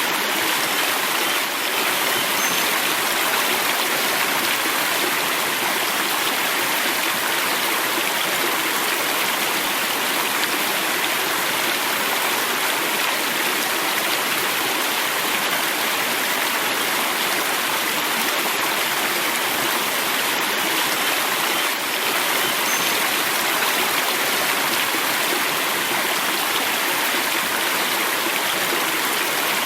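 River water flowing steadily over rocks, an even rushing with no breaks.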